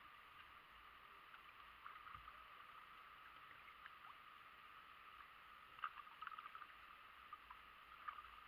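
Near silence: faint water lapping and a few small drips and splashes from a kayak paddle on calm water, most of them about six seconds in, over a steady faint hiss.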